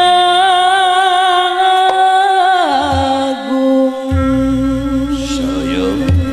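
Female singer of a Sundanese jaipongan group singing long held notes with a wavering vibrato, sliding down to a lower held note about halfway through, over the group's music. A deep low layer joins about four seconds in.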